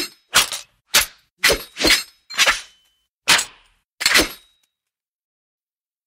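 Sword-fight sound effect: metal blades swung and clashing, about eight quick sharp strikes, some with a brief metallic ring. The strikes stop about four and a half seconds in.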